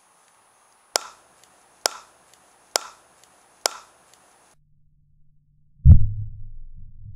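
Pops of a Steradent-fizz mini rocket, a small plastic sample bottle whose cap is blown off by gas pressure: four sharp pops about a second apart. Near the end the same launch is slowed right down, so the pop becomes a loud deep thump trailing into a low rumble.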